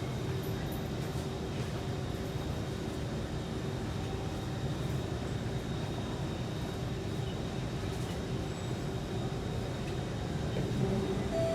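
Steady hum of a Kawasaki C151 metro train standing at a platform, its ventilation and auxiliary equipment running. A chime tone starts right at the end, the start of the door-closing signal.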